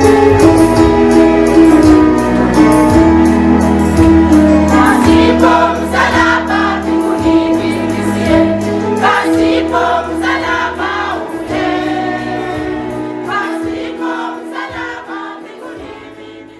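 Gospel song with a choir singing over bass and a steady beat, fading out over the last few seconds.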